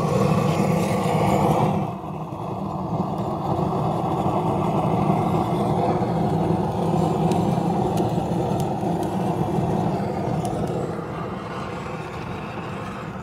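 Propane torch burning with a steady rush as its flame is held against split logs stacked in an offset smoker's firebox to light the fire; it eases slightly after about two seconds.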